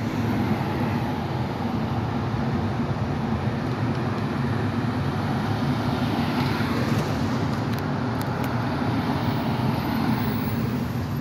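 Street traffic: cars driving past with a steady hiss of tyres and a constant low engine drone underneath.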